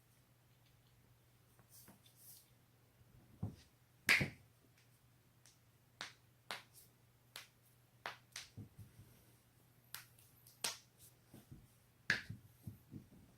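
Joints cracking during manipulation: a series of short, sharp pops, the loudest about four seconds in and about twelve seconds in, with a quick run of smaller pops near the end.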